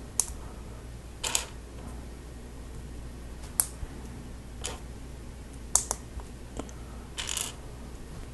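Hard plastic Lego Technic pieces being handled and pressed together: a series of sharp clicks and snaps about a second apart, one slightly longer rattle near the end.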